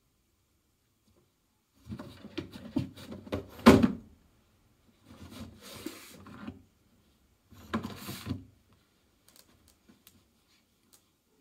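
Black storage box being bumped and shoved across a tile floor by a cat: three bursts of knocking and scraping, with the loudest knock a little before the four-second mark, then a few faint ticks.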